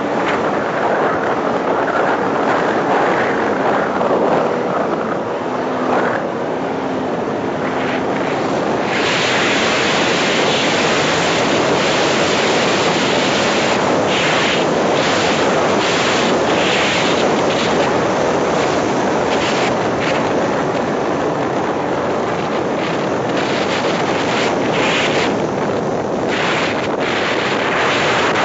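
Wind rushing and buffeting over the microphone of a roof-mounted camera on a 4x4 driving across sand dunes, gusting harder in places. The vehicle's engine runs faintly underneath.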